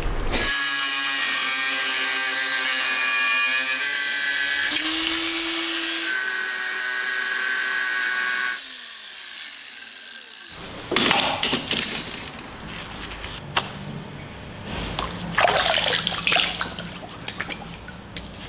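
Angle grinder running at full speed while cutting into a brick chimney, its pitch stepping as the load changes, then released about eight and a half seconds in and winding down with a falling whine. After a short lull, footsteps crunch and knock on broken brick and stone rubble.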